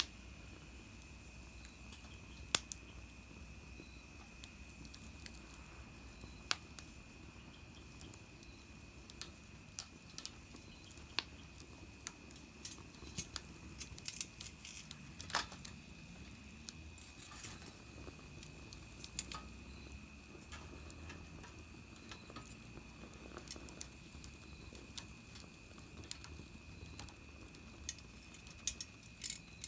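Small wood fire in a mini fire pit crackling, with irregular sharp pops and snaps scattered through, over a steady faint high-pitched tone.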